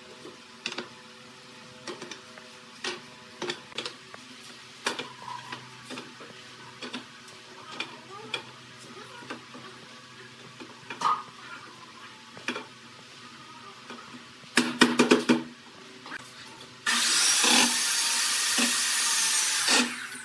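Loose pallet-wood planks clacking and knocking as they are laid into place, with a quick flurry of knocks about two-thirds of the way through. Near the end a cordless drill runs steadily for about three seconds, driving a screw into the planks, and then stops.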